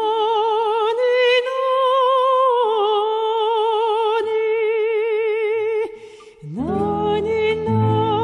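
Music: a high female voice singing long, wordless held notes with a wide vibrato, sliding up into each note. After a short break about six seconds in, a low sustained accompaniment joins beneath the voice.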